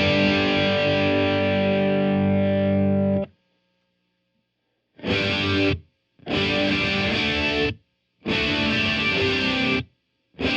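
Distorted electric guitar played through a Blackstar Studio 10 tube combo amp: a chord left ringing for about three seconds and then stopped, then after a short silence four short bursts of chords with gaps between.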